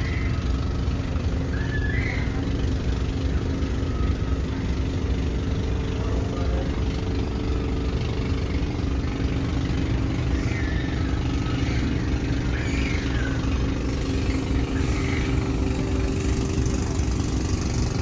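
An engine running steadily, a continuous low rumble with an even hum, with faint voices now and then in the background.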